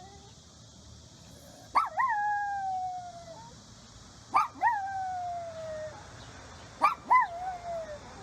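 A dog-like howl, heard three times: each a quick rising yelp that drops into a long, slowly falling tone, over a steady high-pitched hiss.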